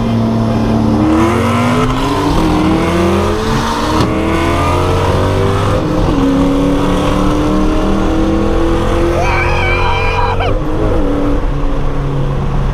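Ford Mustang GT's 4.6-litre three-valve V8 with full exhaust, accelerating hard. Its pitch climbs through each gear and drops at upshifts about two seconds and six seconds in.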